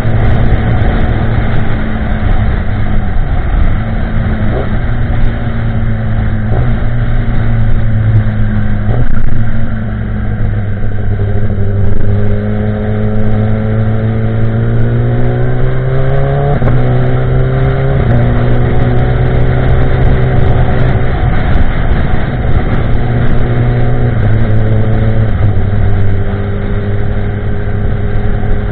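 2016 Kawasaki ZX-10R's inline-four engine through a de-cat Pro Race GP-R2 carbon-fibre exhaust, ridden at cruising pace. The note mostly holds steady, climbs slowly for several seconds midway, then drops sharply at a gear change, with a few more brief steps in pitch.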